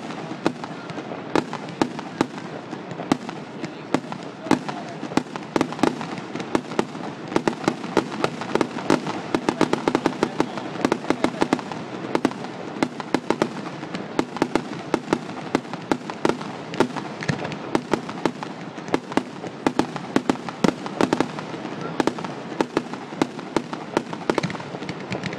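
Fireworks display: a continuous barrage of sharp cracks and bangs, several a second, with crackling between them.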